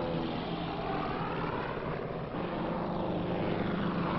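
Piston engines of propeller transport planes droning steadily overhead, their pitch wavering up and down.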